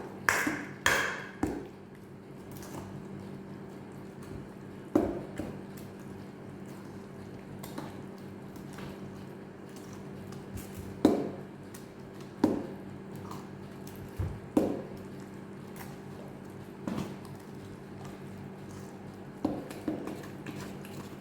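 A utensil knocking and clinking against a mixing bowl now and then as thick shredded-cassava batter is stirred, each knock ringing briefly.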